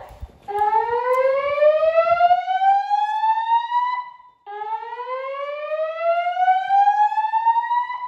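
Gentex fire alarm speaker strobes driven by a Notifier voice evacuation panel, sounding the slow whoop evacuation tone. The tone is two rising sweeps of about three and a half seconds each, climbing steadily from a low pitch to a higher one with a short break between them. A few light footstep taps come in the first second.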